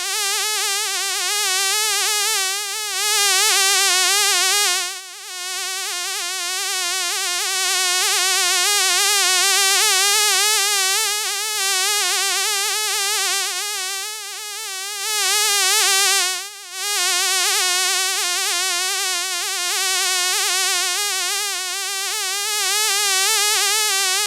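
Buzzing of a fly in flight: a continuous wing buzz with a constantly wavering pitch, swelling and fading as it moves nearer and farther, dropping away briefly twice.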